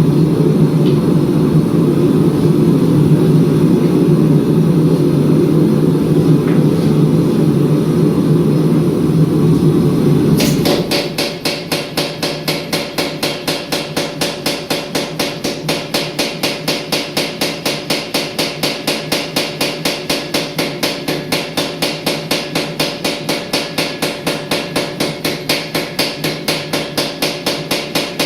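A steady low machine rumble, then from about ten seconds in a long run of rapid, evenly spaced hammer blows on steel, about four a second, each with a short metallic ring, as a Damascus billet is forged.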